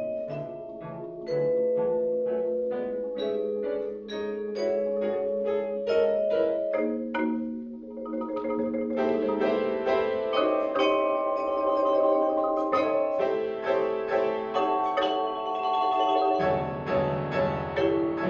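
Live chamber ensemble of marimba, vibraphone and two pianos playing. A steady pulse of ringing mallet notes thickens into a fuller texture about halfway through, and lower notes join near the end.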